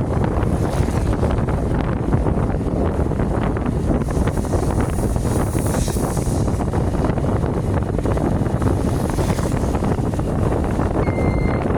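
Wind buffeting the microphone: a heavy, steady rumble with constant crackling gusts.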